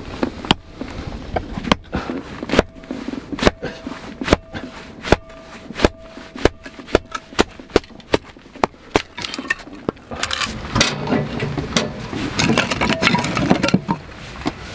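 A hatchet chopping a log into firewood, a sharp knock with each strike, one to two a second. About ten seconds in this gives way to a denser clatter and rustle of split wood being handled.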